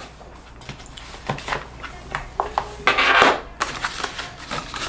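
Handling noise of small plastic headset parts and a hard carrying case on a wooden desk: light knocks and clicks as they are moved and set down. About three seconds in there is a short rustle of paper as the instruction leaflets are gathered up.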